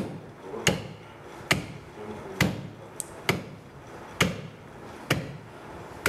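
A heavy butcher's knife chopping through goat meat onto a wooden chopping block: about eight sharp blows, evenly spaced a little under a second apart.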